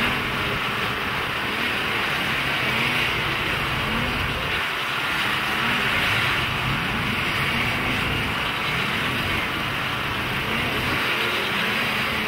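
Racing snowmobile engines, revving up and easing off over and over, about once a second, as the sleds race over the jumps and bumps of a snocross track.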